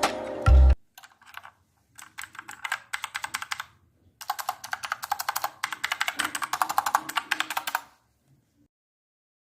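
Typing on an AIGO W661 mechanical keyboard: runs of rapid key clicks, several per second, with a brief pause about four seconds in, stopping near the end. Background music cuts off just before the typing starts.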